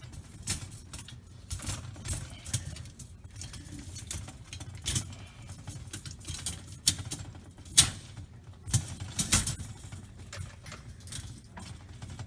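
Dishwasher rack being handled and fitted back into the tub: irregular metallic clicks, rattles and knocks, with a few sharper knocks about five, eight and nine seconds in.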